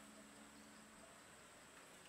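Near silence: faint background ambience with a thin steady high tone, and a faint low hum that fades out a little past a second in.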